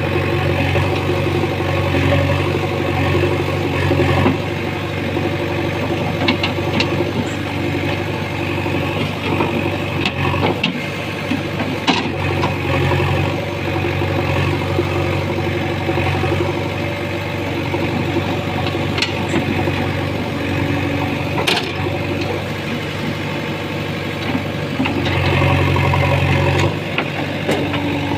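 JCB 3DX backhoe loader's diesel engine running steadily, louder for a few seconds at the start and again near the end, with a few short clanks.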